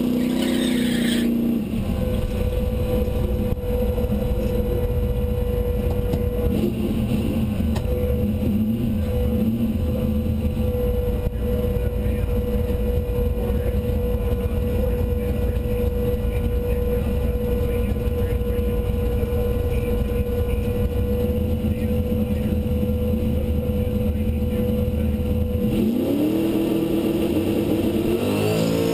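Turbocharged 351 small-block Ford V8 in a Fox-body Mustang drag car running at a steady idle, heard from inside the cabin, with its pitch rising near the end as the revs come up.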